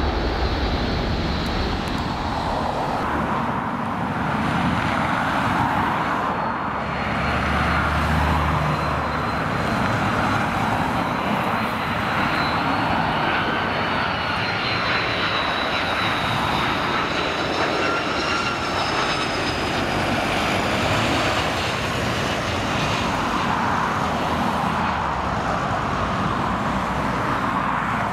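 Airbus A330-200 jet engines on final approach and into the landing flare: a steady jet roar with high whining tones that drift slightly in pitch.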